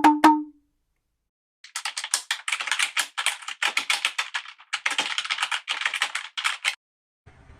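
A run of pitched wooden-sounding knocks ends just after the start. After a second's silence comes rapid, dense clicking like typing on a computer keyboard, lasting about five seconds and stopping abruptly.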